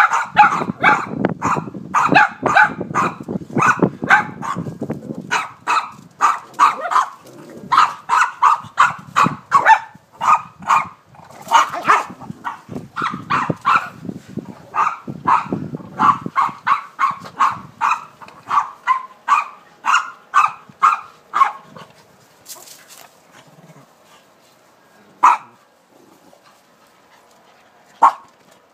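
Dog barking over and over, about two barks a second, until the barking stops about twenty seconds in; two single barks follow near the end.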